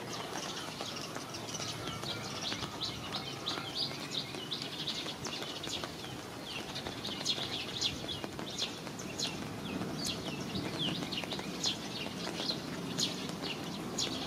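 Small birds chirping, a rapid string of short high chirps, over a steady background hiss of rain.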